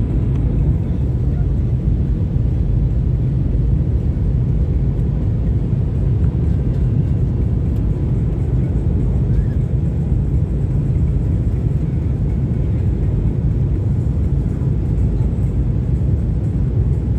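Steady cabin noise of a jet airliner in flight: an even, low rumble of the engines and rushing air, with no separate events.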